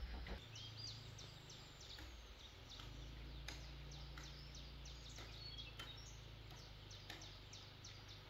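Small birds chirping in short, scattered calls, several quick high notes at a time, over a steady low background rumble.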